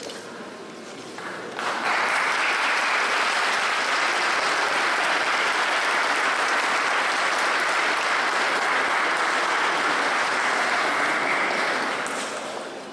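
Crowd applauding: the clapping starts suddenly about two seconds in, holds steady, and dies away near the end.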